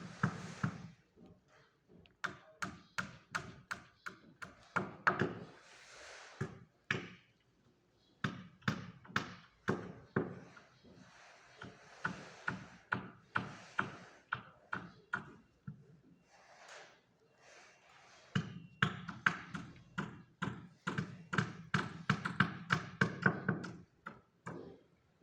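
Irregular sharp taps and knocks, often several a second, with short pauses between runs.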